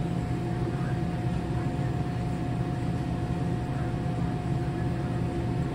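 Steady low mechanical hum of a grocery store's refrigerated display cases, with a faint steady whine above it.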